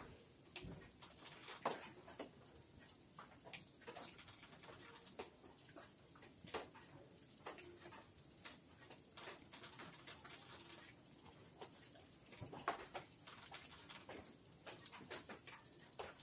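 Faint scattered scuffles and soft taps from a kitten and a dog play-wrestling on a sack, with two louder knocks, one near the start and one about three-quarters of the way through.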